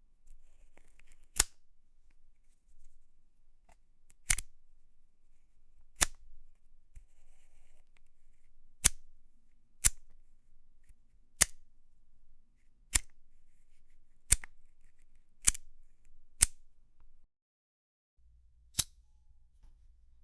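Lighter flicked again and again: about eleven single sharp clicks at uneven intervals of one to three seconds, with no flame sound after them.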